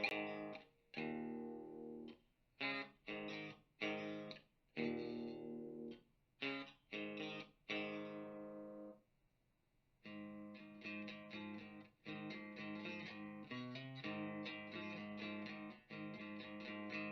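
Electric guitar played through an amplifier and speaker cabinet: short chord stabs that are cut off sharply through the first half, a pause of about a second, then a faster, steadier run of picked chords.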